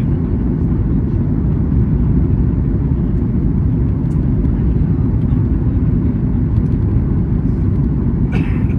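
Airliner cabin noise: a steady, deep rush of engine and airflow noise, with a short higher-pitched hiss near the end.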